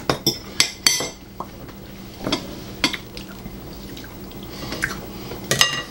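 Cutlery clinking and tapping on dinner plates, with a quick run of three clinks at the start, scattered single clinks after that, and a ringing clink near the end.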